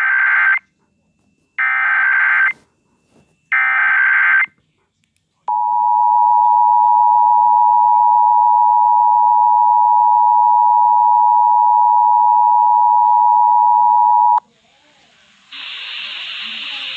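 US Emergency Alert System alert: three short buzzing data bursts of the SAME header, then the steady two-tone attention signal (853 and 960 Hz) held for about nine seconds and cut off sharply. A steady hiss follows near the end.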